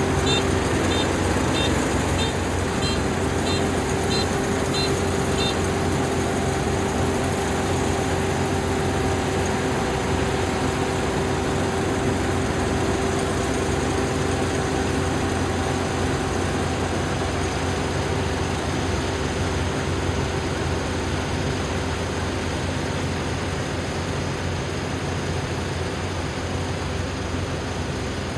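Dynamax 470 combine harvester running steadily while harvesting rice, a constant mechanical drone with a steady hum. For the first five seconds or so, short high chirps sound about twice a second over it.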